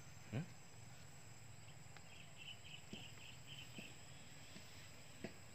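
Quiet field ambience. An insect chirps in a short run of about six quick high pulses in the middle. A soft brush of grass about half a second in and a few light ticks come from hands working in wet grass and mud.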